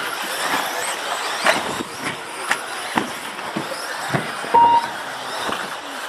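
Radio-controlled race cars running on the track: a steady whirring hiss with scattered clicks and knocks, and one short beep about four and a half seconds in.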